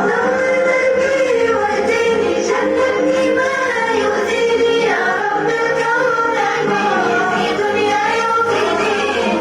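Several voices singing together in chorus, a song sung as part of a staged show, at a steady, loud level.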